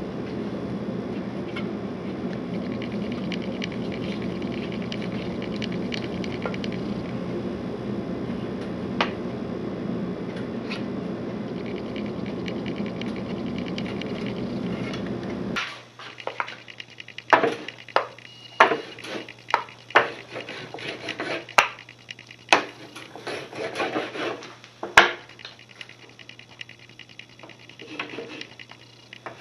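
Steady low rushing noise as a hot waxing iron is worked over the base of a cross-country ski. About halfway through it cuts off abruptly, and a bar of glide wax is rubbed onto the ski base by hand (crayoning) in short scraping strokes with sharp taps.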